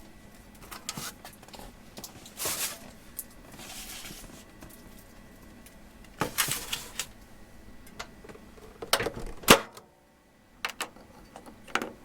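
Scattered small clicks, knocks and rustles of kitchen things being handled in a cramped space, with a sharper knock about nine seconds in.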